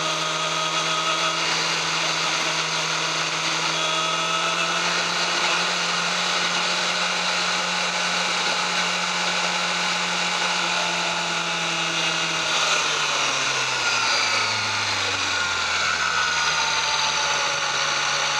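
Yamaha YZF-R6 inline-four engine on its stock exhaust, running at a steady high-pitched note. About two-thirds of the way in the note falls over a couple of seconds as the revs drop, then holds lower, and it starts to rise again at the very end.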